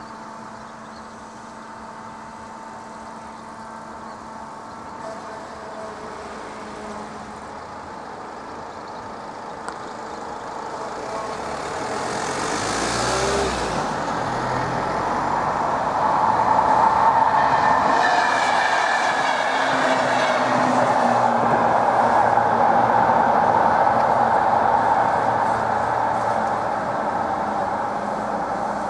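Electric passenger train passing over a level crossing. Its rumble builds over about ten seconds, stays loudest through the middle, then fades near the end.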